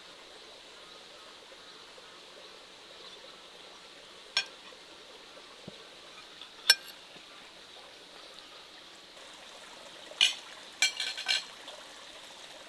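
Cutlery and porcelain dishes clinking at a table: a few separate sharp clinks, the loudest about seven seconds in, then a quick cluster of clinks near the end. Underneath runs a steady faint rush of flowing water.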